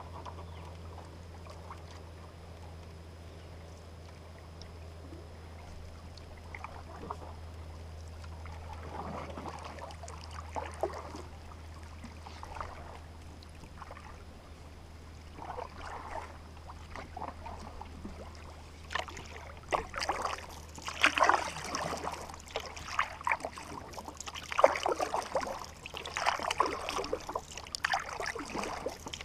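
Canoe paddle strokes in calm water: the blade dipping and pulling with trickling, splashing drips, soft at first and louder and more frequent from about two-thirds of the way through. A steady low hum runs underneath.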